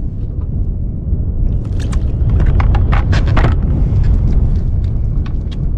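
Wind buffeting the microphone with a low rumble throughout. From about one and a half seconds in, a run of clicks and rattles, densest near the middle, as a weighted cast net's lead line is gathered up out of a plastic bucket.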